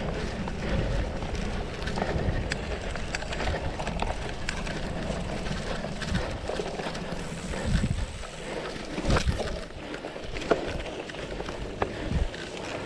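Cyclocross bike ridden fast over bumpy grass: steady tyre rumble and wind on the microphone, with a few sharp knocks and rattles from the bike over bumps in the second half.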